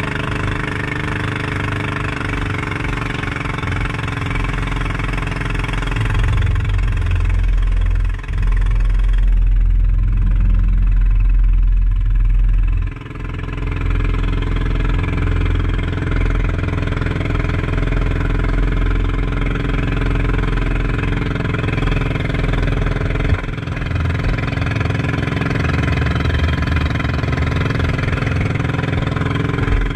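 Motorized outrigger boat's engine running steadily at speed. For several seconds in the middle a heavier low rumble comes up and the hiss drops.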